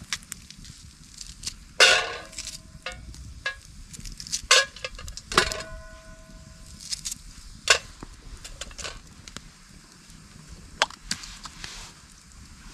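A knife blade clinking against a metal frying pan as food is cut into it: a few sharp metallic clinks that ring on briefly, the loudest about two seconds in and about five and a half seconds in, among smaller scattered clicks.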